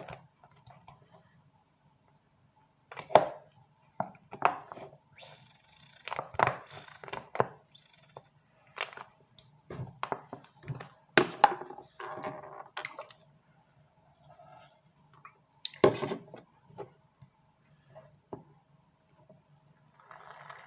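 Irregular knocks, clicks and short scraping sounds of containers and utensils being handled while mixing slime, over a faint low hum.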